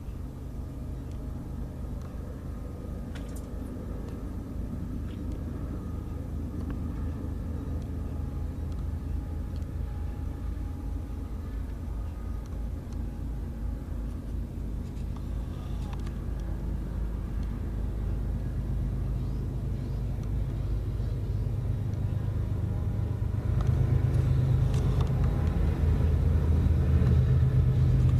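Low, steady engine-like rumble, as of a motor vehicle running, that grows louder, with a marked step up near the end.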